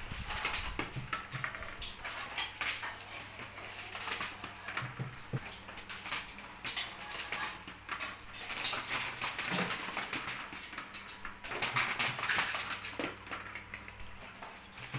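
Small plastic balls clattering and tapping against the plastic cups of a homemade ball run: a steady stream of light irregular clicks, busiest about two-thirds of the way through.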